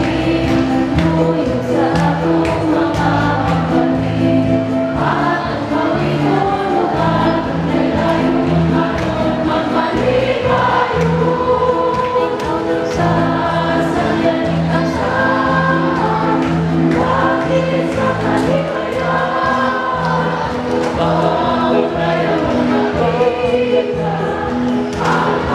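Choir singing a hymn with instrumental accompaniment, over a steady, repeating bass line.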